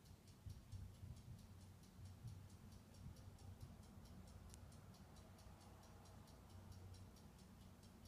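Near silence: faint room tone with a steady low hum and a rapid, even high ticking of several ticks a second.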